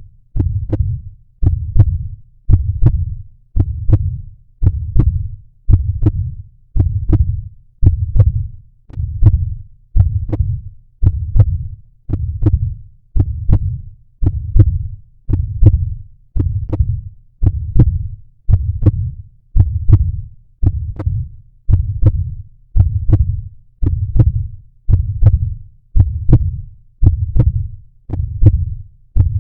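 Heartbeat sound effect: a steady lub-dub, about one beat a second, each beat a pair of deep thumps.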